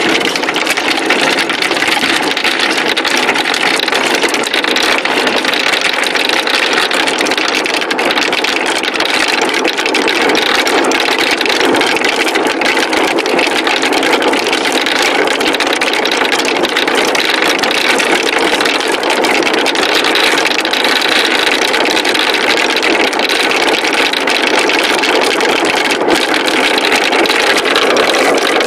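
Many marbles rolling and clattering down a wooden marble run, a continuous dense rattle of fine clicks that keeps up without a break.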